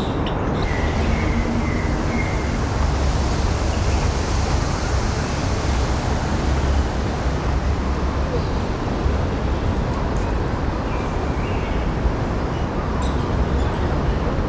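Steady, loud rushing of a park waterfall, with a deep rumble beneath it. A few faint bird chirps come about a second in and again near the end.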